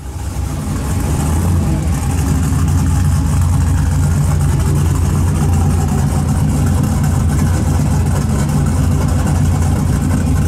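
Modified Chevy pickup truck's engine running at a steady, loud idle, a low rumble with no revving.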